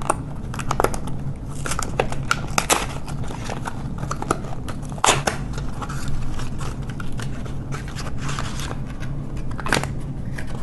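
Small cardboard retail box being opened by hand: irregular clicks, scrapes and crinkles as the flaps and inner cardboard tray are worked loose and the Raspberry Pi 4 board is lifted out of its paper wrapping. A few sharper snaps stand out, and a steady low hum runs underneath.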